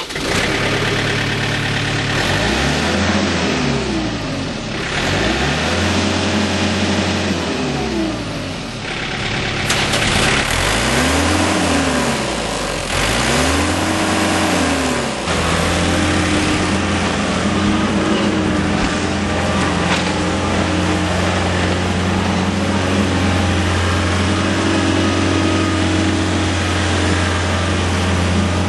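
John Deere 110 backhoe loader's diesel engine running, revved up and back down four times in a row, then held at a steady speed.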